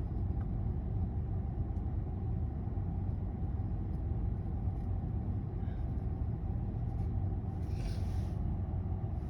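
Steady low background rumble, with a short sniffing breath near the end from a stuffed-up person trying to bring on a sneeze that won't come.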